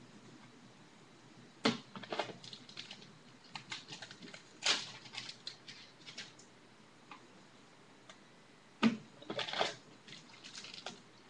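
Trading cards and their packaging being handled: scattered clicks, taps and rustles, with sharper clicks about two, five and nine seconds in.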